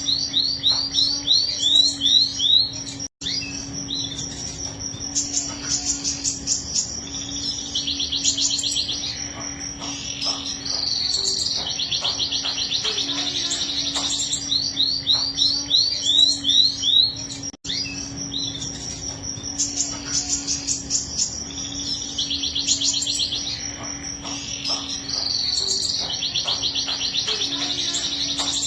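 Domestic canary singing a long song: series of rising whistled notes at about three a second alternating with fast rolling trills, the rolls this bird is prized for. A low steady hum runs underneath, and the same stretch of song comes round again about every 14 seconds with a brief drop-out each time, as in a looped recording.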